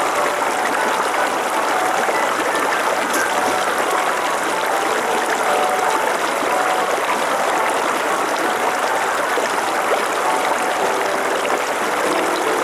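Small rocky mountain stream rushing and splashing over stones, a steady, loud water noise.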